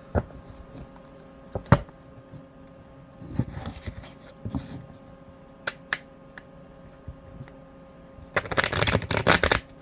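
Tarot cards being handled, with scattered taps and card clicks, then a dense, rapid run of card shuffling lasting about a second near the end.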